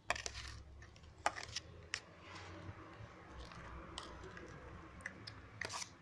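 A spoon stirring and scraping a thick dish-soap and baking-soda paste in a plastic tub. There are several sharp clicks of the spoon against the plastic and a scratchy rubbing in between.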